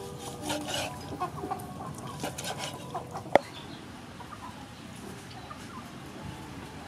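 Chickens clucking, with one sharp knock of a cleaver chopping on a wooden chopping board about three and a half seconds in, the loudest sound.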